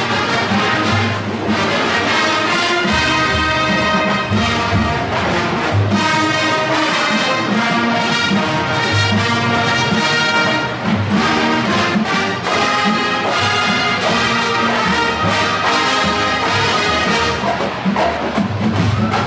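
Brass marching band with percussion playing a loud, steady passage, with regular low notes from the low brass and drums.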